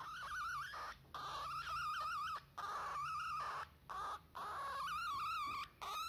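Lutino cockatiel chirping in a run of warbling calls, about five in a row with short pauses between them, the pitch wavering up and down within each call.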